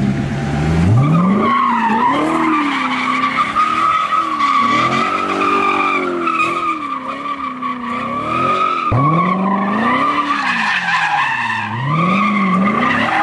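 Chevrolet Corvette C7 Stingray's V8 revving up and down over and over during donuts, with the rear tyres squealing without a break as they spin and smoke. The engine note drops sharply about nine seconds in, then climbs again.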